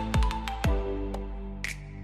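Background electronic music with a kick-drum beat and held synth notes.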